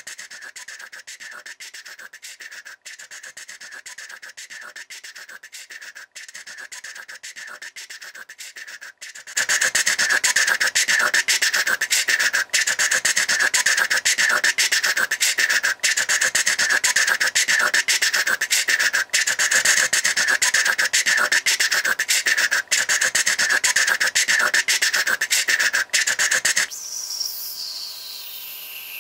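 Home-made rasping, scratching sound effect standing in for a small stop-motion train running, a dense continuous scrape that gets much louder about nine seconds in. Near the end it drops back and a falling tone glides down.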